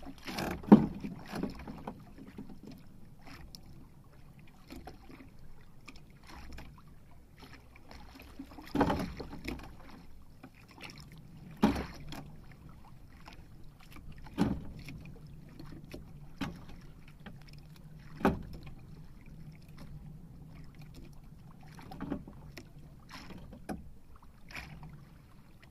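Irregular knocks and thumps on a small outrigger fishing boat, roughly one every two to three seconds, over a low wash of wind and sea.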